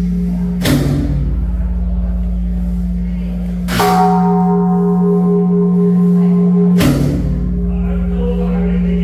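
Large temple bell struck three times, about three seconds apart, each stroke ringing on in a long steady hum.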